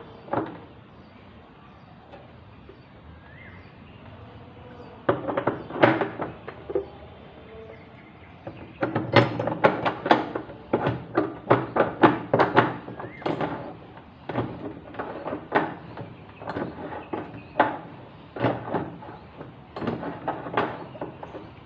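Irregular knocks and clunks of hard washing machine parts being handled and fitted, a few at first, then a quick run of them for several seconds about nine seconds in.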